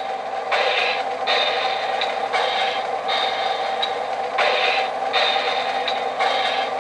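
O-gauge model trains running on three-rail track: a steady metallic rolling clatter, with a scraping sound that comes and goes about once a second.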